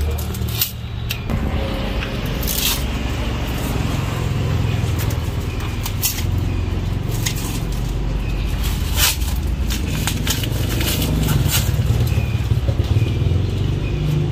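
Scissors snipping twine and plastic wrapping, with plastic sheeting crinkling and rustling now and then, over a steady low rumble.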